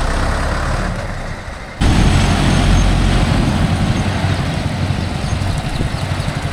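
Mahindra Yuvo Tech Plus 585 tractor's diesel engine running with a steady low rumble. About two seconds in, the sound jumps abruptly louder and stays so.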